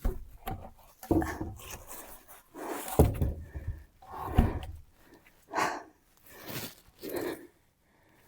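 A very heavy load being lifted and shifted by hand: a run of irregular thuds and knocks, the loudest about three seconds and four and a half seconds in, with strained, panting breaths between them.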